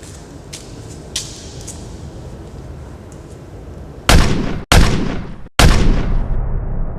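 Three loud gunshots in quick succession, each ringing out briefly and cut off sharply; after the last one the sound turns muffled.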